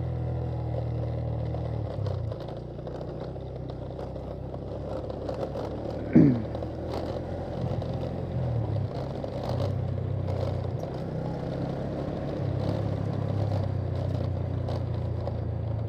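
Motorcycle engine running while under way, its steady hum dropping and picking up again several times with throttle and gear changes. About six seconds in there is a brief loud sound whose pitch falls quickly.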